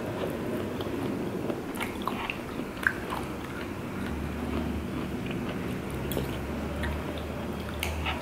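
Close-up chewing of tteokbokki, chewy Korean rice cakes in sauce, with wet mouth sounds and a few sharp clicks. The loudest click comes about three seconds in.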